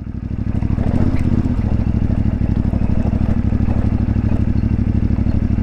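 CFMoto 450MT's parallel-twin engine running under way. It picks up over the first second as the throttle opens, then holds a steady pull.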